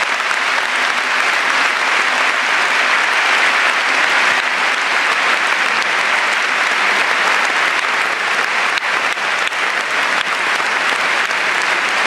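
Large concert audience applauding steadily, a dense sound of many hands clapping at once.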